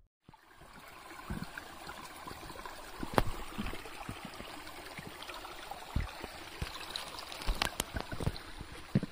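Small shallow stream trickling over stones, with irregular knocks and thuds of footsteps on the path and wooden boardwalk planks, the sharpest about three seconds in and a cluster in the last few seconds.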